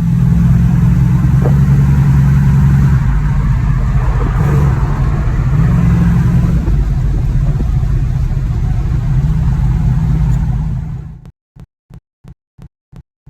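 Car engine running with a deep steady drone that steps up and down in pitch a few times, cutting off abruptly about eleven seconds in. It is followed by short, evenly spaced pulses, about three a second.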